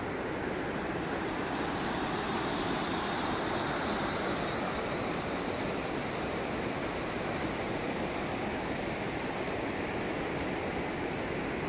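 Steady rush of a flood-swollen river running fast, an even wash of water noise with no breaks.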